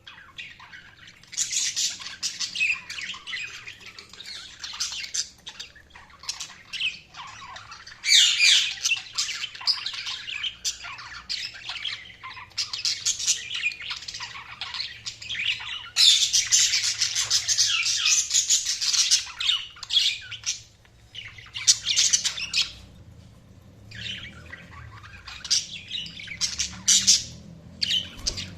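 Budgerigars chirping and squawking in rapid, chattering bursts, with the loudest stretches about eight seconds in and again from about sixteen to nineteen seconds.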